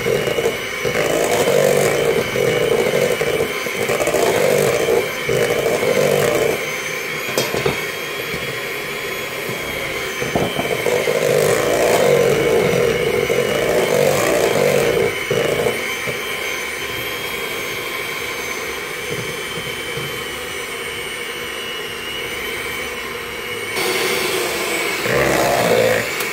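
Kenwood electric hand mixer running, its beaters working beaten egg into thick choux pastry dough in a stainless steel bowl. A steady motor whine sits over an uneven churning that grows louder in stretches, near the start, in the middle and near the end.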